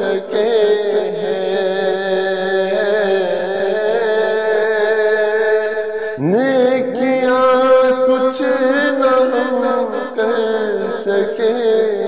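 A man's voice chanting in long, held melodic phrases, sliding up into a higher note about six seconds in.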